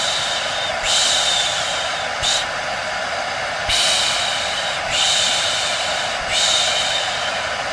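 Hair dryer running steadily as baby-sleep white noise, with a higher hiss laid over it that comes and goes about every second and a quarter, in a regular rhythm like shushing.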